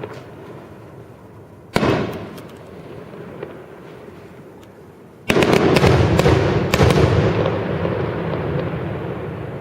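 Fireworks exploding: a single sharp bang about two seconds in, then a louder bang about five seconds in followed by a quick run of crackling bangs and a long rumbling echo that slowly fades.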